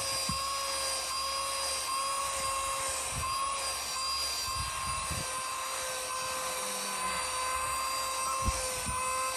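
Small portable car vacuum cleaner running with a steady, high-pitched motor whine, with a few low thumps mixed in.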